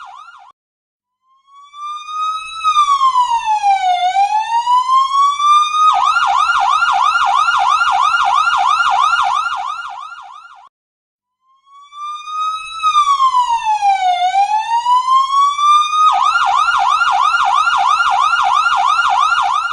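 Ambulance siren cycling through a slow wail, one long rise and fall in pitch, then switching to a fast yelp of rapid repeated sweeps for about four seconds. It stops briefly and the same wail-then-yelp cycle repeats; the first cycle is preceded by the fading end of a yelp.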